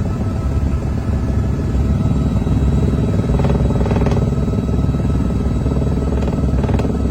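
Helicopter engine and rotor running steadily, with a fast pulsing beat in the low end.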